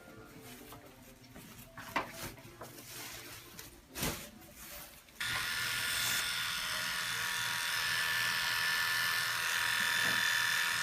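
Electric hair clippers switched on about five seconds in and buzzing steadily, clipping the scalp short; before that, a few light clicks and knocks of handling.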